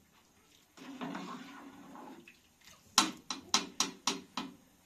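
A metal ladle taps sharply against the rim of a metal cooking pot six times in quick succession, about three seconds in. Before the taps there is a softer stretch of noise.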